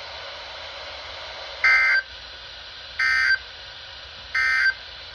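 NOAA Weather Radio sending the EAS end-of-message code: three short, shrill data bursts about a second and a half apart over steady radio hiss, marking the end of the severe thunderstorm warning broadcast.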